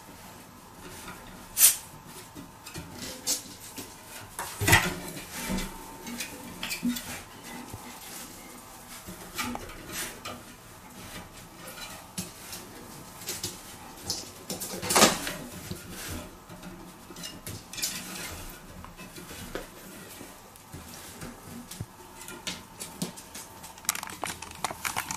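Irregular clinks and knocks of hard objects, the sharpest about two, five and fifteen seconds in.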